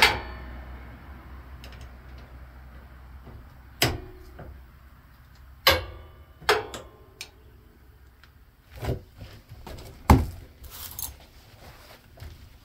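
Metal hand tools clinking and knocking against the yard tractor's steel steering linkage while bolts are worked loose. The strikes come one at a time at irregular moments, with the sharpest at the very start and again about ten seconds in.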